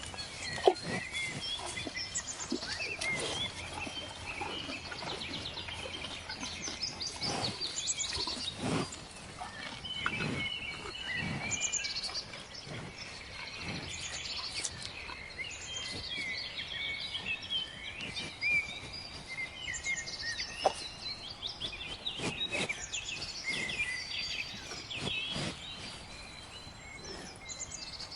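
Cows grazing, with irregular short crunching snaps of grass being torn and chewed, under continuous chirping of many small birds.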